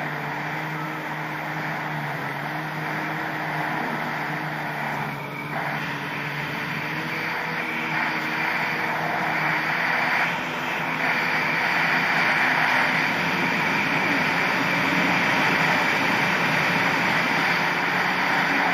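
Yamaha SuperJet stand-up jet ski's two-stroke engine running under way, with water rushing and spraying against the hull. It grows louder about halfway through.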